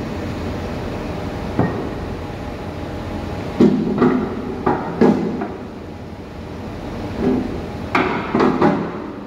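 Short metal clanks and knocks at an elevator-type hydraulic press and its stainless tank: one sharp knock, then a cluster of four ringing clanks near the middle and three more near the end, over a steady machine hum.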